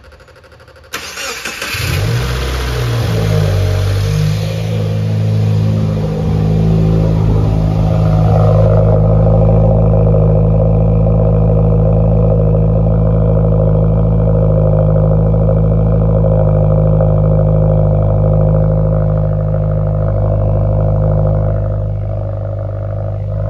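A Subaru WRX's FA20 turbocharged flat-four started on fresh spark plugs, heard at the quad exhaust tips. It fires about a second in and settles into a steady idle, run to listen for misfires in the exhaust.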